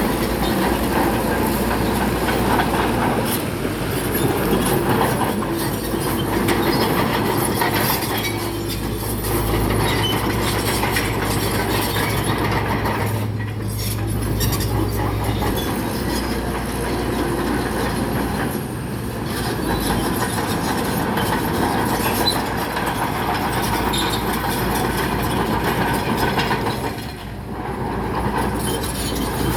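Bulldozer at work pushing rock: its diesel engine runs under load while the steel crawler tracks clank and squeal.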